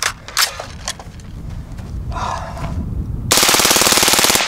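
Suppressed LaRue SUURG 5.56 mm rifle firing one fast full-auto burst of about a second near the end, with the barrel and suppressor glowing cherry red from sustained fire and losing some of their sound suppression. A few sharp clicks come first, and a low rumble builds.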